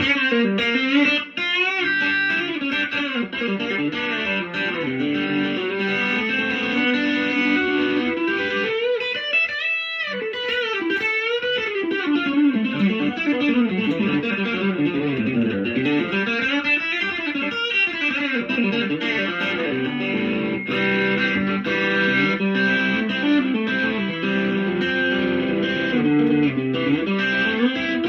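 Fender Telecaster electric guitar played through a Dr. Z Mazerati tube amplifier, a continuous run of notes with some sliding up and down in pitch.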